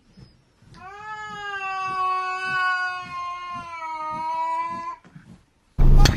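A cat giving one long, drawn-out meow of about four seconds that rises briefly at the start and then slowly sinks in pitch. Loud music cuts in suddenly near the end.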